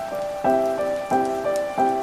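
Slow piano notes, one struck about every two-thirds of a second and left to ring, over a soft hiss of rain.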